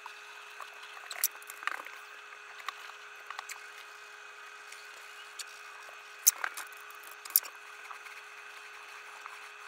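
A steady faint hum with scattered sharp clicks and light knocks; the loudest clicks come about a second in and twice between six and seven and a half seconds in.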